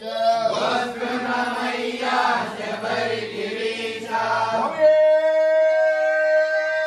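A group of devotees chanting together in unison, then, about five seconds in, one long steady held note.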